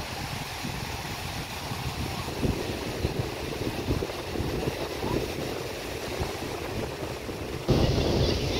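Beach ambience: wind buffeting the microphone over the wash of surf, with no clear events, turning suddenly louder near the end.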